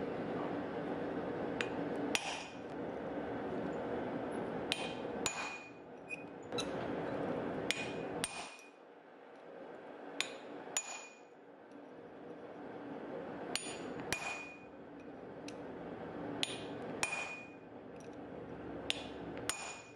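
Hammer striking a hand punch into a hot mild-steel tab on an anvil: sharp metallic blows with a short ring, mostly in pairs, the pairs a few seconds apart, punching divots so screw heads will sit flush. A steady background hum runs under the blows and fades for a few seconds in the middle.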